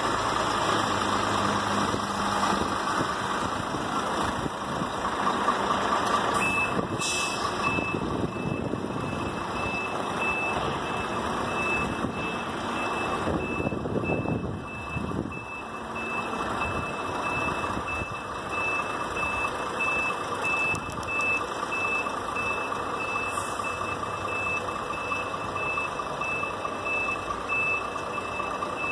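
A heavy vehicle's engine running, with a reversing beeper that starts about six seconds in and repeats evenly, a high short beep over and over.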